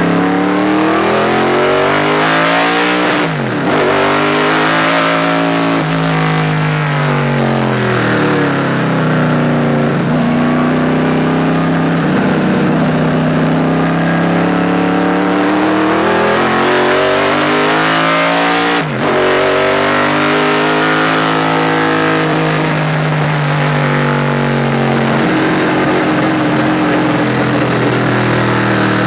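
Roller-cam small-block Chevrolet V8 race engine under hard load, heard from the cockpit, its note rising and falling in long sweeps as the car accelerates and slows through the corners. The note breaks off sharply twice, a few seconds in and again past the middle, typical of quick gear changes.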